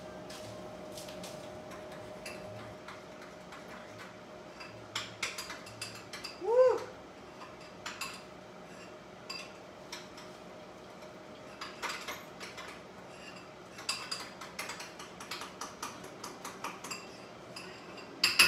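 Utensils and dishes clinking and knocking on the kitchen counter as food is handled, in scattered light taps with a sharper ringing clink near the end. About six seconds in, a single short high cry rises and falls.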